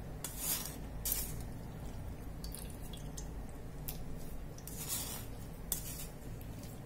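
Several short, light clinks and scrapes of kitchen utensils, about five or six in all, over a steady low hum.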